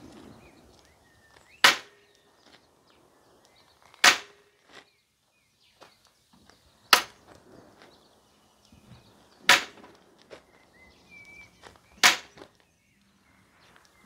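Five sharp wooden knocks, about two and a half seconds apart, from the wooden lever board rigged to stress the folding knife's lock in a spine-wag test.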